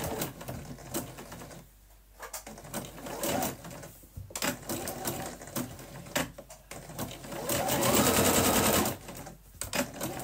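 Bernette electric sewing machine stitching a dense zigzag seam in several short runs with brief stops. The longest and loudest run comes near the end, with the motor rising in pitch as it speeds up and then holding steady.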